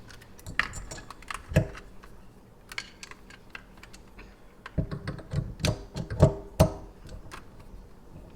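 Small metal parts clicking and clinking against the faucet as the handle screws are dropped in and set. There are scattered light clicks, then a run of louder, briefly ringing clinks about five to seven seconds in.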